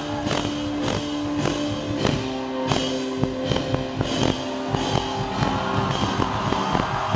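Live rock band playing: two drum kits beaten in a steady pulse of about three hits a second under held keyboard and guitar tones.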